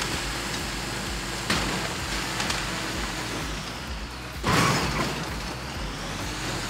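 Vehicle rumbling along a rough track, with a sudden jolt about a second and a half in and a louder, rougher burst of noise about four and a half seconds in.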